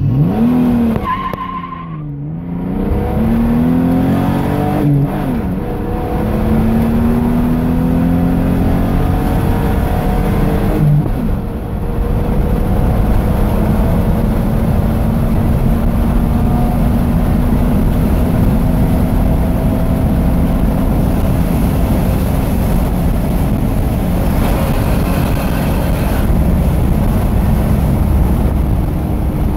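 The 4.0-litre SOHC V6 of a 2002 Ford Ranger, heard from inside the cab, accelerating hard through the gears of its five-speed manual. The engine note climbs, drops at each upshift about two, five and eleven seconds in, then holds a steady high-rev drone.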